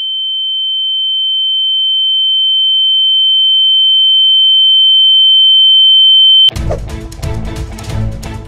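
A single steady high-pitched ringing tone, the film sound effect of ringing ears after a blow, swelling louder and cutting off suddenly about six and a half seconds in, when loud fight music with hits takes over.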